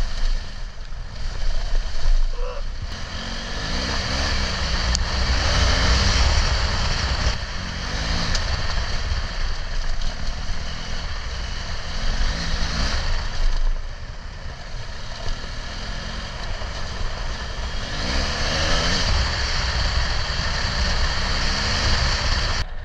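BMW GS adventure motorcycle riding, its engine pitch rising and easing off several times as the throttle opens and closes, under a steady rush of wind and road noise.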